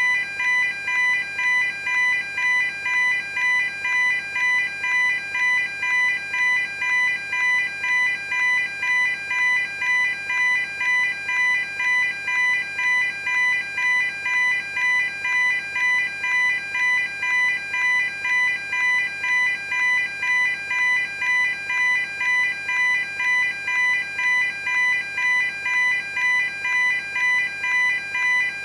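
Level crossing warning alarm sounding, a high electronic ding repeating evenly at just under two strokes a second.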